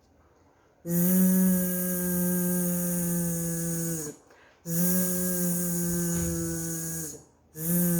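A woman's voice sustaining a buzzing "zzz" letter sound three times, two long holds of a few seconds and a short one at the end, demonstrating the letter's phoneme.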